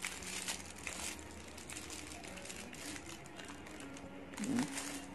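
Cardboard and plastic packaging rustling and crinkling as it is handled and opened, with a brief louder noise about four and a half seconds in.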